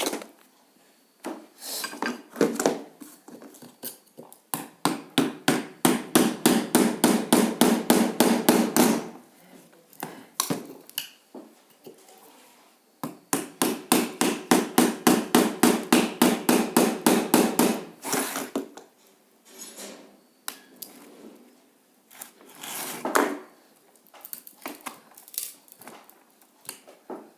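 Hammer striking a screwdriver driven against the cut secondary coil of a microwave oven transformer to knock it out of the core. There are two long runs of rapid, even blows, about five a second, with scattered single knocks between them.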